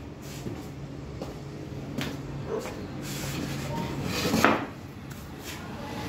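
Scattered metal knocks and clicks, the loudest about four and a half seconds in, from tapping and working a piston pin out of the connecting rod of a Yamaha Crosser 150's single-cylinder engine. The pin is stiff to remove from lack of lubrication. A low steady hum runs underneath.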